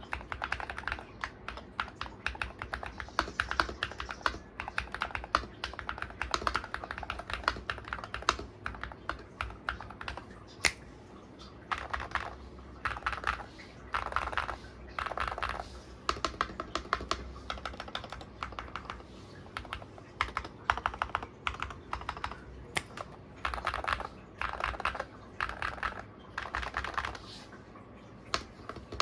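Typing on an Attack Shark X68HE Hall-effect keyboard with modded, lubed switches: a steady run of keystrokes, with several stretches of fast, dense key presses.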